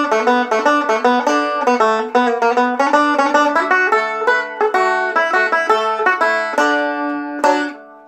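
Deering Eagle II banjo picked in a fast run of bright plucked notes, settling near the end onto a final struck chord that rings and dies away.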